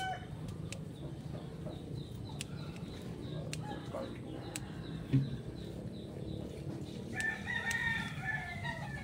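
A rooster crows once near the end, a long call that falls slightly in pitch. Earlier, scissors give a few sharp snips as bitter gourd vine stems are cut, with one louder knock about halfway through.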